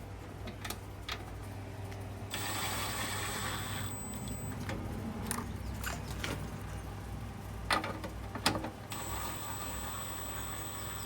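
Bolts on a furnace blower assembly being tightened with a ratchet wrench: two stretches of ratcheting, about two seconds in and again near the end, with a few sharp metal clicks between them.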